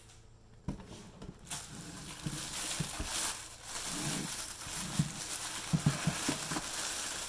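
Clear plastic bag crinkling and rustling as a wrapped waffle maker is pulled out of its cardboard box and handled on a counter, with several dull knocks of the appliance and box. The crinkling starts about a second and a half in and keeps on.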